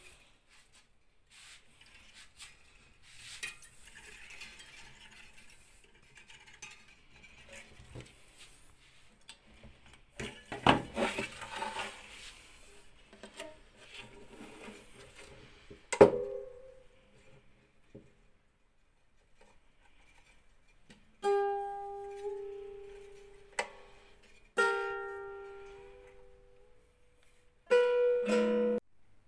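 Hands rubbing and clicking on a freshly restrung mandolin's strings, then the strings are played to test them: one sharp pluck about halfway through, two strummed chords that ring out and die away, and a short burst of rapid picking lasting about a second near the end.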